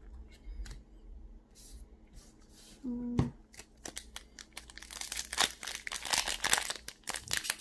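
Pokémon TCG booster pack's foil wrapper crinkling and crackling as it is worked open by hand, growing dense and loud from about halfway through. Before that come light clicks of trading cards being handled.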